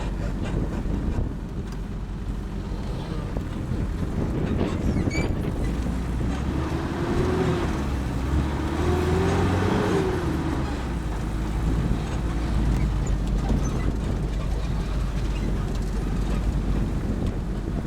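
Steady low rumble of a vehicle in motion, with wind buffeting the microphone; around the middle an engine tone rises and then falls away.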